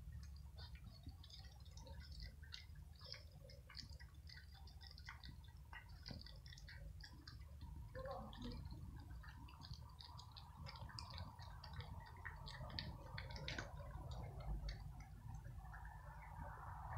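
Cats crunching dry kibble: a steady run of faint, irregular small crunches and clicks. A faint steady hum joins about halfway through.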